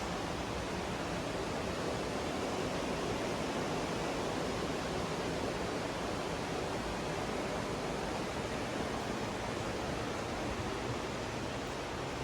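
Steady rushing of a mountain creek's flowing water.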